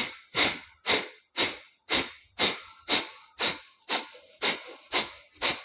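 Forceful exhalations through one nostril, the other held shut with the thumb: single-nostril kapalbhati breathing, short sharp nasal puffs at about two a second with silent inhales between.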